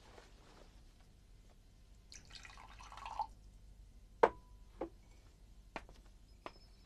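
Liquid poured briefly into a small glass, then a few sharp clinks of the glass or its lid being handled and set down. The first clink is the loudest and rings briefly.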